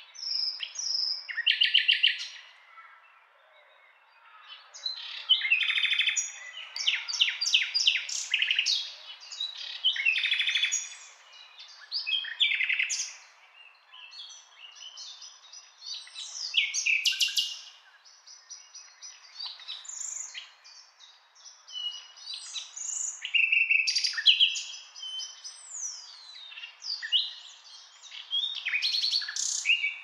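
Nightingale singing: about eight varied phrases a few seconds apart, mixing fast trills of rapidly repeated notes with whistled rising and falling notes, over a faint background hiss.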